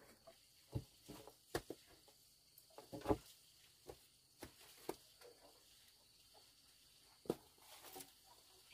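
Scattered faint knocks and thuds of peeled wooden poles being handled, bumping against each other and the ground, at irregular intervals.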